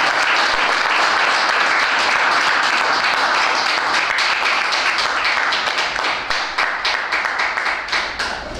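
Applause: a dense patter of many hands clapping that thins out about six seconds in to scattered separate claps.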